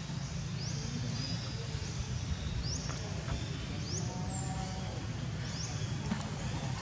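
Outdoor ambience: a steady low rumble with short, high chirps that rise in pitch, repeating about once a second.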